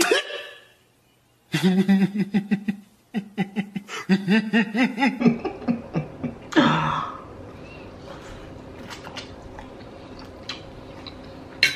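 A man's voice for the first few seconds, then a short loud vocal sound, then quiet eating: faint chewing and small clicks of forks over a low steady hum.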